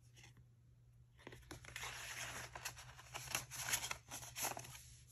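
Paper rustling and crinkling as an airmail envelope and a card are handled and slid against each other, starting about a second in with a few sharper crackles.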